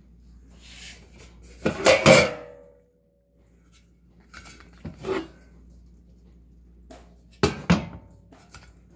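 Brass spittoon being handled, turned over and set back down on a table. A loud double clank about two seconds in leaves a brief metallic ring, and lighter knocks follow twice later on.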